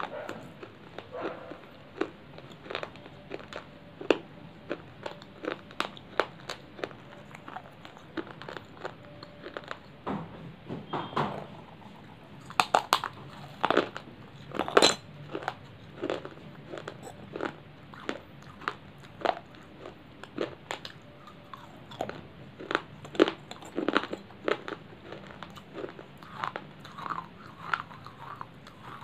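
Brittle baked clay chips being bitten and chewed close to the microphone: sharp, irregular crunches throughout, with a few louder bites around the middle.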